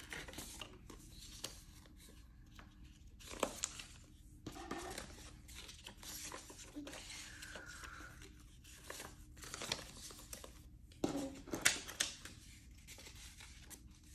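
Paper prop-money banknotes rustling and crinkling as they are counted and slid into a cash envelope in a ring binder. There are a few sharper crackles, the loudest about eleven to twelve seconds in.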